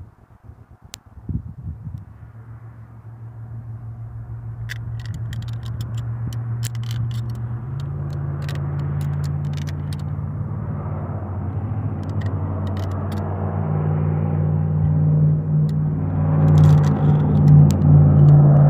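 A motor vehicle engine running with a steady low hum that grows gradually louder, loudest near the end, with scattered light clicks of small parts being handled.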